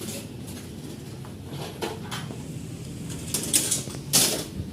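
A few light clinks and clatters of hard objects being handled, over a steady low hum; the loudest clatter comes near the end.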